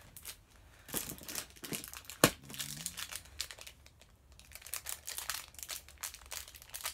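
Thin clear plastic bags crinkling as they are handled, in irregular crackles. One sharp click a little over two seconds in is the loudest sound.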